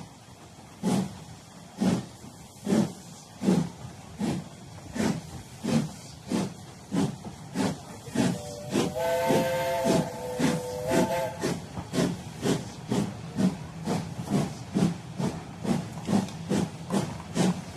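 Steam locomotive working a train: regular exhaust chuffs over a steady steam hiss, the beats coming faster as it picks up speed. Its steam whistle sounds once for about three seconds midway.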